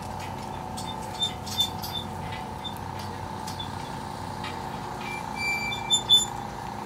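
Steady mechanical hum with a whining tone, with faint light clicks scattered through and a few short high squeaks near the end.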